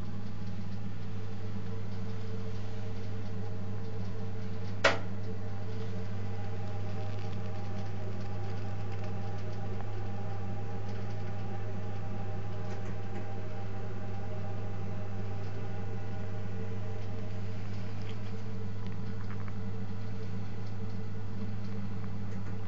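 Protherm Lynx 24 kW wall-mounted gas boiler running with a steady low hum. A single sharp click sounds about five seconds in.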